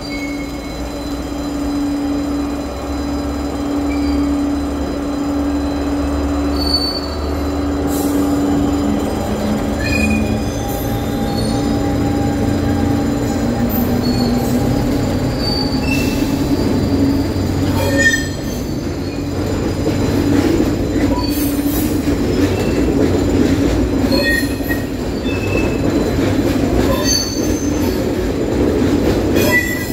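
Diesel freight locomotive passing close by with its engine running in a steady tone. It is followed from about halfway on by a long string of hopper wagons rolling past, with wheel clatter and short high-pitched wheel squeals.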